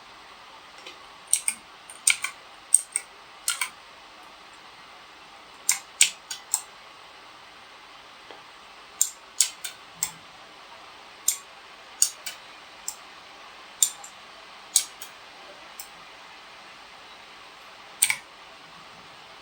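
Single keys of an H61K mechanical keyboard with clicky blue switches pressed one at a time, each giving a sharp click, some as quick double clicks, at irregular intervals rather than steady typing.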